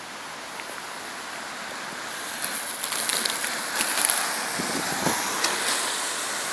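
Car tyres hissing on wet asphalt as cars drive toward the listener, growing louder from about two seconds in, with scattered sharp clicks.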